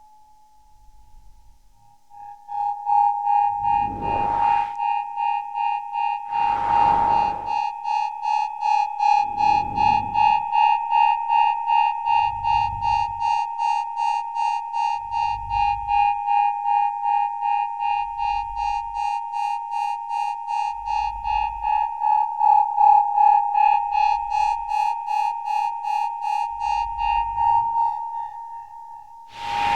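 Synthesized electronic sound effect: after a quiet start, a steady pulsing electronic tone comes in about two seconds in, with low thumps about every three seconds and a few swooshing sweeps, the loudest near the end.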